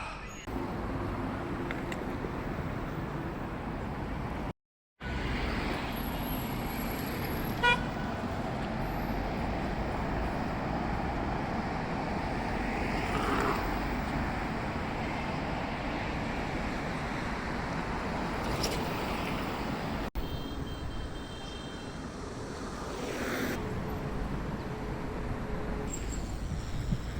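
City street traffic: a steady rumble of passing cars, with a short car-horn toot about eight seconds in.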